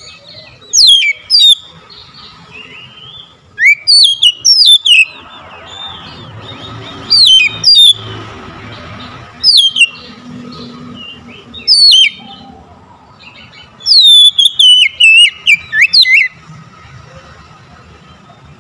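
Oriental magpie-robin singing in loud bursts of sharp, steeply falling whistled notes, about six phrases a few seconds apart. The longest run of notes comes near the end.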